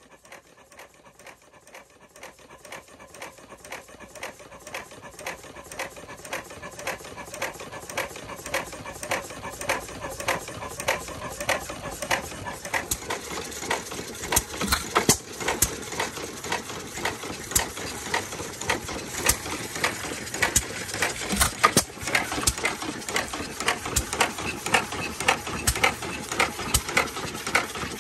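Fairbanks Morse 4 hp Model T vertical engine running, a fast, even clatter of clicks and ticks from its moving parts. It grows louder over the first dozen seconds, then runs steadily.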